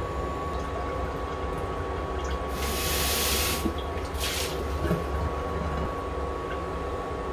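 Induction cooktop running under a pot of broth: a steady low fan hum with a thin high whine. About two and a half seconds in comes a burst of hiss lasting about a second, and a shorter one a second later.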